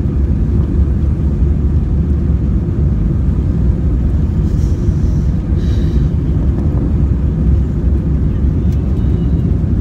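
Airliner cabin noise: the steady, loud low rumble of the jet engines heard from a window seat, with two brief faint hissy rustles about halfway through.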